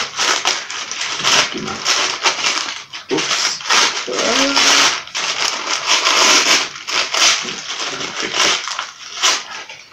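Brown paper envelope rustling and crinkling in the hands as it is opened and searched through, with irregular sharp crackles throughout.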